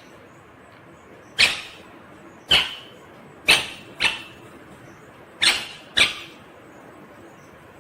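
Indian ringneck parrot giving six short, shrill squawks about a second apart, the last four in two quick pairs.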